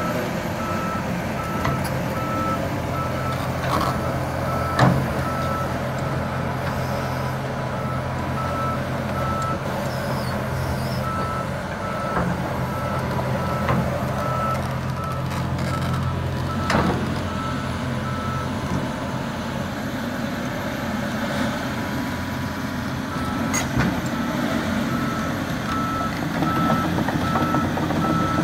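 John Deere 250G excavator's diesel engine running as the machine tracks and turns, its travel alarm beeping steadily over the engine hum. A few sharp knocks stand out, the loudest about five seconds in and another near seventeen seconds.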